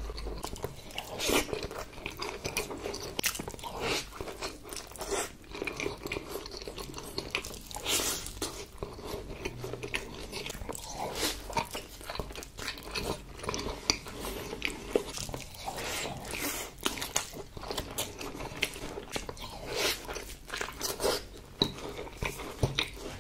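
A person chewing bites of salmon nigiri sushi: soft raw salmon and rice worked in the mouth, with many irregular wet clicks of eating throughout.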